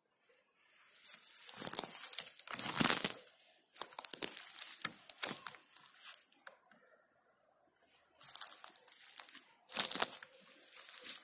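Footsteps crunching on a forest floor of dry pine needles and twigs: a run of uneven steps, a short pause a little past the middle, then a few more.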